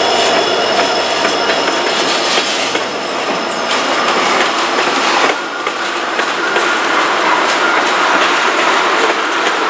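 Freight train rolling past: a covered hopper and tank cars on steel wheels, clicking over rail joints, following the trailing end of a diesel locomotive. A faint high wheel squeal fades out in the first few seconds.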